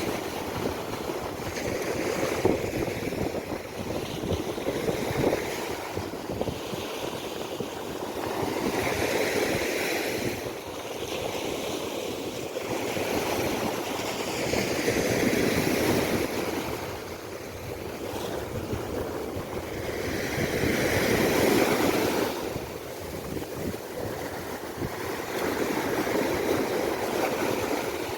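Waves breaking on a sandy beach: a wash of surf that swells and fades about every five to six seconds.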